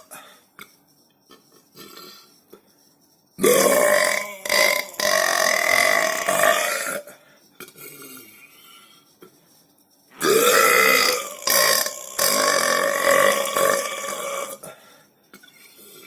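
Two long, loud human burps, each three to four seconds long, the first about three seconds in and the second about ten seconds in. Each rises in pitch at the start and then holds a steady pitch.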